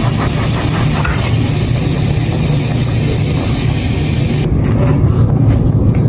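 Running water rinsing bleach out of a wig, a steady loud hiss. About four and a half seconds in the high hiss falls away and the splashing turns rougher and uneven.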